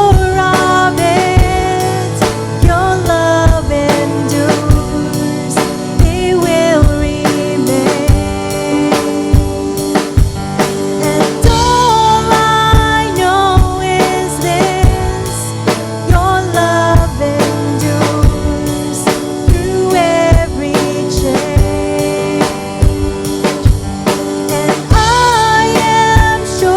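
Live worship band playing a song: a singer's melody over a drum kit keeping a steady beat, with bass drum and snare.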